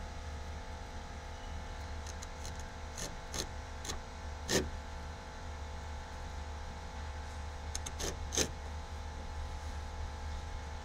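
Utility knife with a fresh blade cutting through two overlapping layers of carpet-style headliner: a few short cutting strokes in two clusters, the loudest about four and a half and eight seconds in, over a steady low hum.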